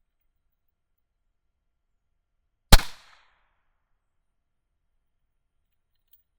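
A single shot from a German M1879 Reichsrevolver firing a 10.6 mm German Ordnance cartridge, loaded light. It is one sharp report a little under three seconds in that dies away within half a second.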